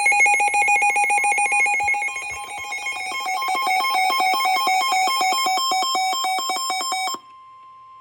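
Electronic emergency-alert tone: a rapidly pulsing alarm warbling between two pitches, changing its pattern about two to three seconds in and cutting off suddenly about seven seconds in. A faint steady beep tone follows.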